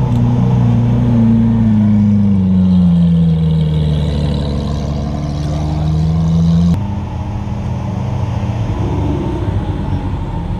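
A car engine running close by, its note falling slowly in pitch over the first few seconds and then levelling off. It changes abruptly about two-thirds of the way through to a lower, rougher engine sound.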